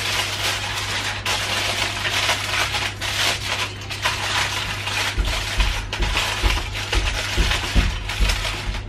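Aluminium foil crumpled and scrunched by hand, a dense crackling rustle. From about five seconds in there are soft low thumps as the foil is pressed down into a ceramic baking dish.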